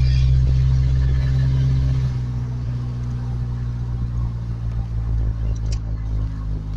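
1991 Ford Ranger's engine running at a steady speed, a low, even drone.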